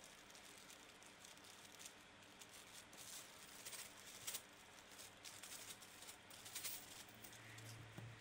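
Faint handling noise: a clear plastic bag crinkling and small plastic keyboard parts clicking and rattling as they are tipped into a mesh bag, in short irregular bursts.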